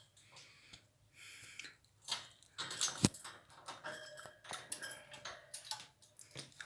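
Pet parrot moving about on its cage: scattered light metallic clicks and rattles, one sharper click about three seconds in, with a few faint short squeaks.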